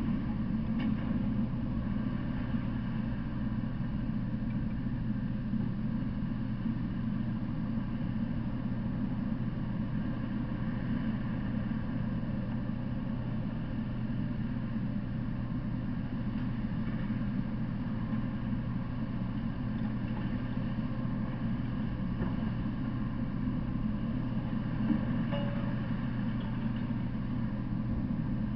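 Steady low drone of an idling engine.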